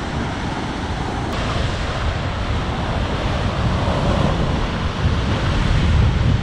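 Heavy surf crashing against rocky sea cliffs: a continuous rushing roar with a deep rumble that swells a few seconds in. Wind is buffeting the microphone.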